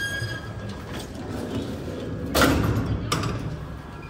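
Collapsible steel scissor-grille door of an old lift being slid along its track. It starts with a brief high squeak, then a metallic rattle, a louder clatter about two and a half seconds in and a sharp clank just after three seconds.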